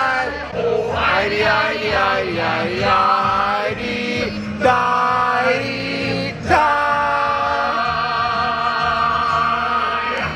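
Sea-shanty sing-along: a group of voices sings over backing music, changing notes in the first part and then holding a long final chord from a little past halfway to the end.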